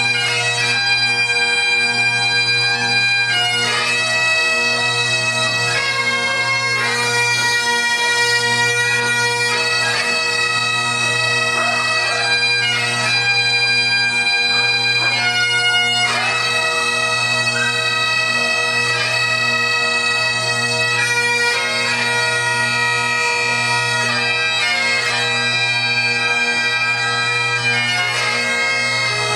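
Bagpipes playing a melody of long held notes over their steady drones.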